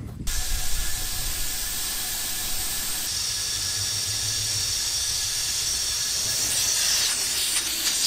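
Compressed air hissing steadily through an air chuck held on the valve stem of a flat skid steer tire as it is inflated; the hiss turns sharper near the end.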